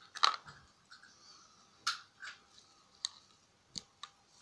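Steel pliers clicking and scraping against the brass collector pin of a torn-down AA alkaline battery as pieces are broken off. About six short, sharp clicks come at uneven intervals, the loudest right at the start.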